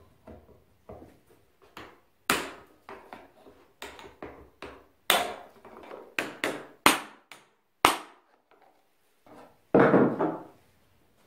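Sharp knocks of a long steel rod driven through a Honda CR250's aluminium muffler held in a vise, knocking the end cap outward. The knocks come at uneven intervals, with a longer, louder clatter near the end as the cap shifts.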